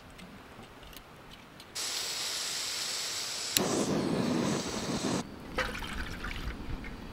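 A backpacking gas canister stove hissing steadily. A sharp click about halfway through adds a deeper rushing sound, and both cut off suddenly. Water is then poured from a mug into an aluminium mess tin.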